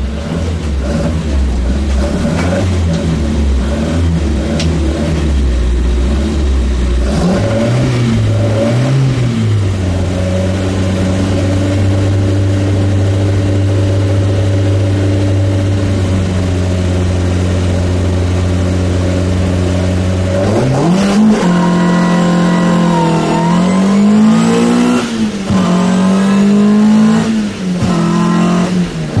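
Opel race car's engine heard from inside the cabin: it runs low and uneven, then is revved up and held at one steady pitch for about ten seconds. Just after two-thirds of the way through it climbs sharply as the car launches, rising and dropping through quick gear changes.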